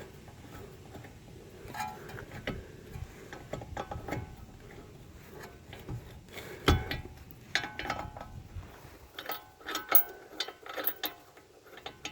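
Irregular metallic clicking and clinking of a hand ratchet and tools working the brake caliper bolts on a car's front hub. The clicks come in uneven runs, each with a short metallic ring, with one sharper knock about seven seconds in.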